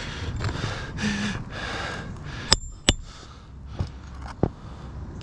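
Hammer driving a roofing nail back into an asphalt shingle: rustling, then two sharp metallic strikes about halfway through, followed by a few lighter taps.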